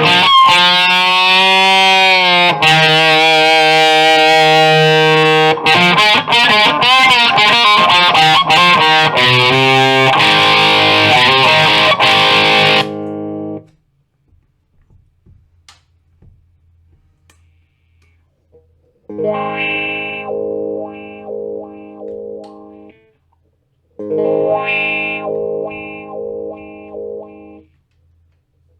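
Squier Classic Vibe Starcaster electric guitar played through a distorted amp, with bent notes and sustained lines for about thirteen seconds. Then a pause with only a faint amp hum. Then two phrases of short, choppy chord stabs.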